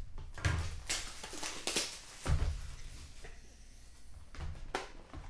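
Plastic shrink wrap being torn and crumpled off a sealed trading-card box, in a few short crackling bursts, with a low knock about two seconds in as the box is handled on the table.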